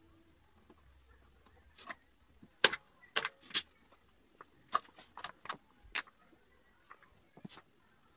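Wooden strips knocking and clicking against each other and the tabletop as they are picked up and fitted by hand: a scattered run of short, sharp taps beginning about two and a half seconds in, the first one the loudest.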